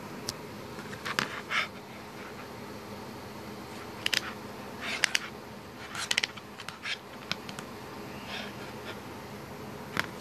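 Folding over-ear headphones being handled: a series of short, irregular plastic clicks and rustles as the headband slider is adjusted, over a steady low background hum.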